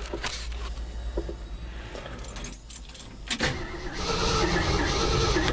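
Ignition keys jingle, then about three and a half seconds in the starter cranks the 1974 Ford F250's 390 V8 with a steady, even rhythm, turning it over without it catching. It is a failed cold start, which the owner puts down to too little spark.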